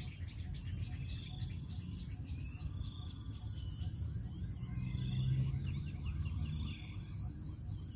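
Birds chirping now and then over a steady high insect drone, with a low rumble underneath.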